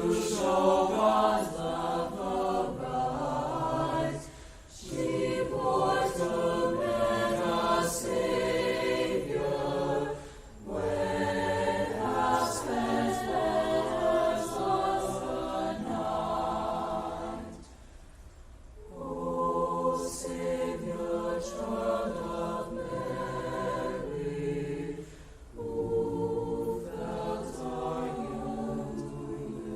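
A student choir singing in sustained phrases, with short pauses between phrases, the longest about two-thirds of the way through.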